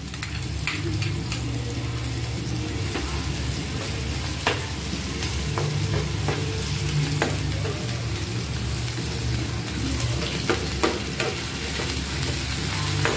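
Onions, garlic and tomatoes sizzling in a nonstick pan as shrimp paste (bagoong) is stirred in, with a metal spoon scraping and clicking against the pan now and then.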